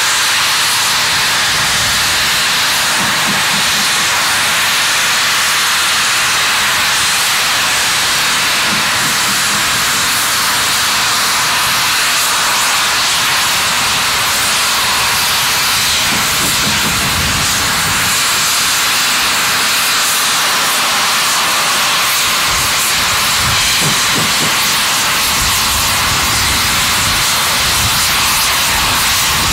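LSWR T3 4-4-0 steam locomotive blowing off steam: a loud, steady hiss, with a low rumble coming and going in the second half.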